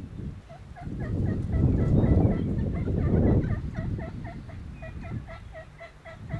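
A long run of turkey yelps, short evenly spaced notes at about four a second, over a low rumbling noise that is loudest in the first half.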